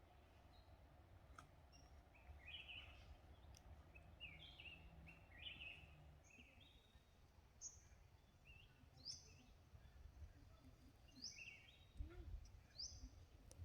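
Faint birdsong: short chirped notes, about two a second, at several pitches, over a low steady rumble.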